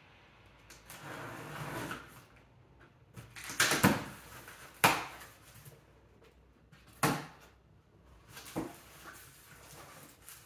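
Cardboard boxes and packing being handled: a rustle, then four sharp knocks and scrapes as boxes are moved and rummaged through.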